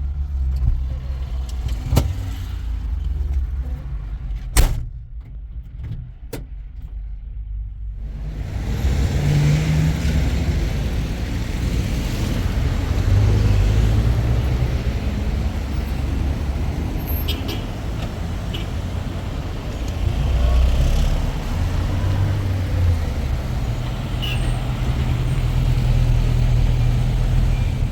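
A car engine running with road noise, as from a vehicle being driven. There are a few sharp knocks in the first seconds, then the engine and road noise grow louder and steadier from about eight seconds in.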